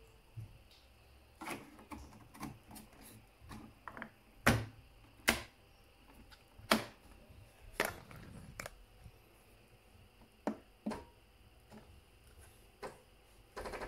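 A string of irregular hard plastic clicks and knocks as a Bosch Tassimo Vivy 2 capsule machine is handled and its top is worked by hand. The clicks are loudest in a cluster a few seconds in and thin out to a few single clicks near the end.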